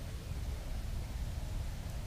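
Steady low rumble with a faint even hiss: background noise with no distinct bird call or other event.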